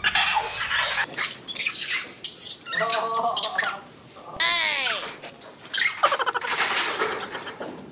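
Monkeys screeching and squealing in a string of harsh cries, with a few pitched calls that fall in pitch about halfway through.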